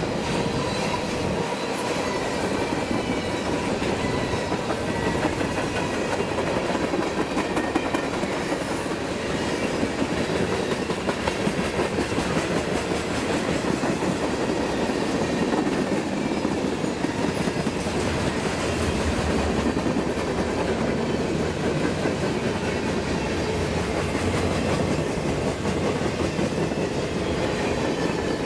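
CSX freight train's covered hoppers and tank cars rolling steadily past, with wheels clicking rhythmically over the rail joints.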